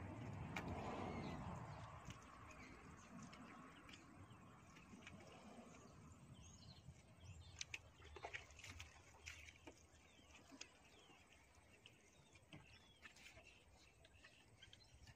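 Near silence with faint outdoor ambience: birds chirping now and then, a few light clicks, and a low rumble that fades away within the first two seconds.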